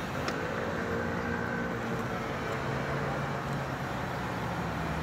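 A steady low machine hum with a faint higher whine over the first three seconds and a light click just after the start.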